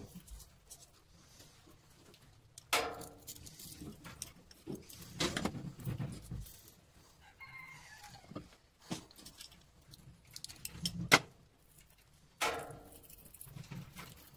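Scattered clinks and knocks of hand tools and an angle grinder being handled and set down on a workbench, with no motor running. The sharpest knock comes about two-thirds of the way through.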